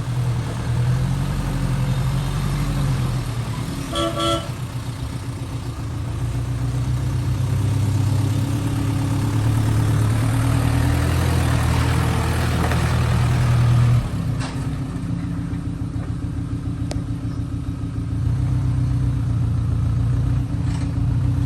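Heavy diesel engine of earth-moving equipment running steadily under load, its note dropping about fourteen seconds in. A short vehicle horn toot sounds about four seconds in.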